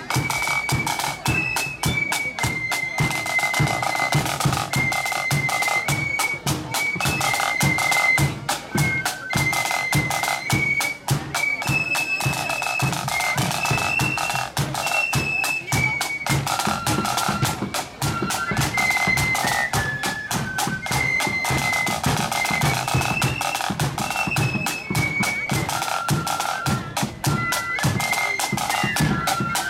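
Marching band playing: a high, step-wise melody held over rapid, continuous side-drum beating with a bass drum.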